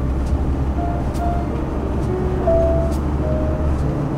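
Engine and road noise inside a moving motorhome's cab: a steady low drone, with faint ticks about once a second.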